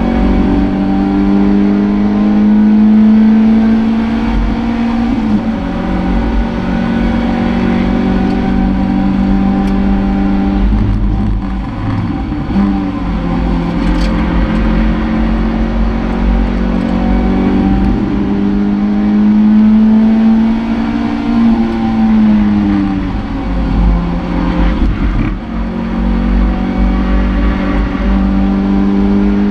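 Toyota MR2 race car's engine heard from inside the cockpit, pulling hard under load, its note climbing slowly and then falling sharply several times at gear changes and lifts. Steady road and wind rumble runs underneath.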